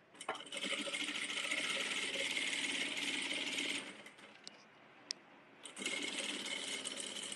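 Industrial single-needle sewing machine stitching a seam in soft fabric, in two runs: a long run of about three and a half seconds, a pause with a couple of sharp clicks, then a shorter run near the end.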